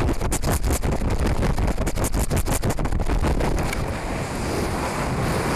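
Wind rushing over a high-power rocket's onboard camera as the sustainer falls under its drogue parachute at about 100 feet per second. The rush pulses rapidly for the first three and a half seconds, then settles into a steadier, slightly quieter roar.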